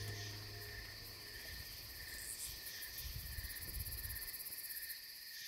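Crickets chirring steadily in an evening insect chorus, with a soft low rumble through the middle.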